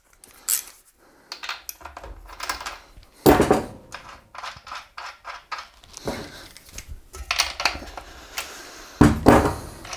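A 19 mm wrench clicking and clinking on the axle nuts while the e-bike's rear hub screws are loosened, with two louder metal clunks, one about a third of the way in and one near the end.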